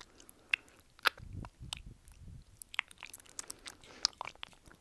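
Full upper and lower dentures clicking together, close-miked: a string of irregular sharp clicks, with wet saliva sounds from the mouth.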